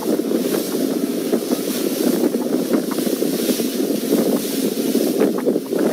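Steady, dense wind rumble buffeting the microphone aboard a tour boat out on open water, with faint crackles over it.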